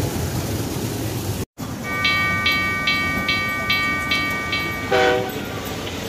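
Small amusement-park train's horn signal: a steady high tone with a ringing note repeated about two or three times a second for roughly three seconds, then a short lower toot about five seconds in. Under it runs the rumble of the ride.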